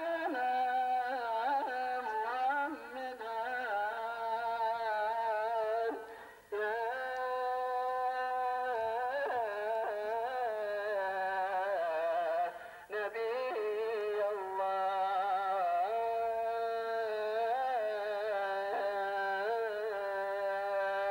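A solo voice singing a slow, ornamented melody in long held notes, with short breath pauses between phrases.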